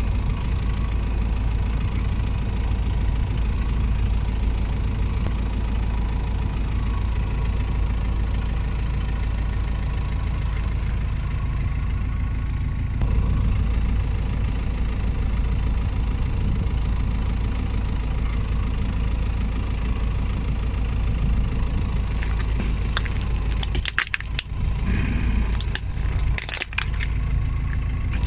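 Car engine idling steadily. Near the end comes a quick run of sharp cracks and crunches as plastic toy figures break under the tyre.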